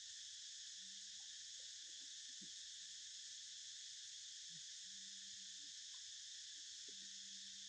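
Steady high drone of insects in the surrounding vegetation, with a low hoot repeating about every two seconds.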